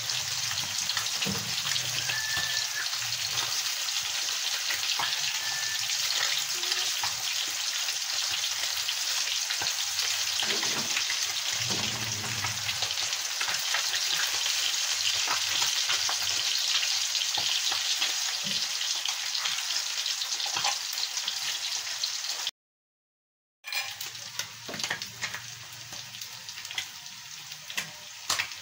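Pieces of fish frying in hot oil in a pan: a steady sizzle with fine crackles. About three quarters of the way through it cuts out completely for about a second, then comes back quieter with scattered pops.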